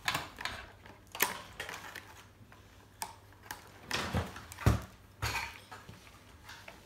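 Scissors snipping through the plastic packaging that holds a doll in its box, with irregular sharp snips and clicks and some rustling of plastic and cardboard.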